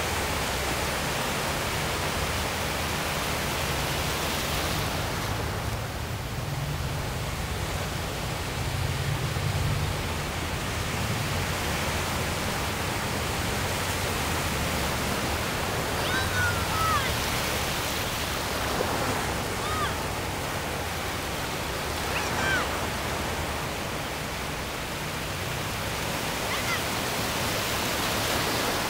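Ocean surf breaking and washing up the beach: a steady rushing hiss that swells a little now and then. A few faint, brief high cries rise over it in the second half.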